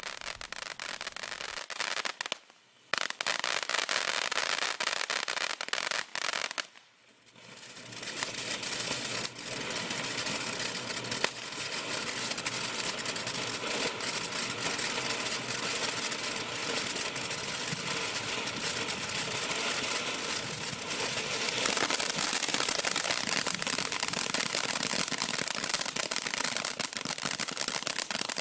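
Popcorn fountain firework burning: a steady hiss thick with fast crackling, broken by two short drops near three and seven seconds in.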